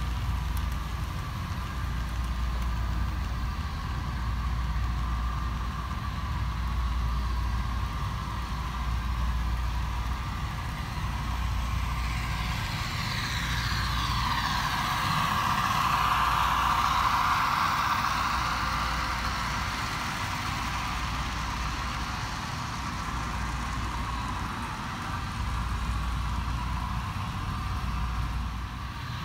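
HO-scale model trains running on a layout, with a steady low hum. The hum grows louder for several seconds around the middle as two trains pass close together.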